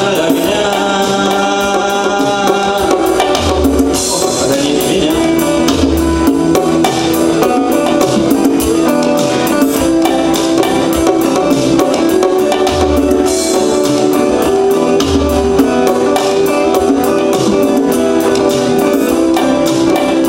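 Instrumental passage of a rock song with drums keeping a steady beat under sustained melody lines.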